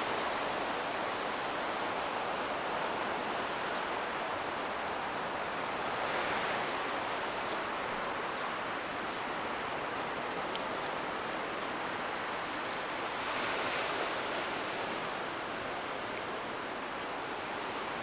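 Steady wash of sea surf, swelling twice as waves come in, about six seconds in and again about thirteen seconds in.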